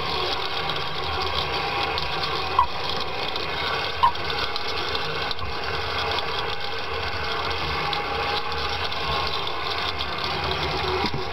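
A motor running steadily while a prawn trap line is hauled in, with two short clicks in the first few seconds.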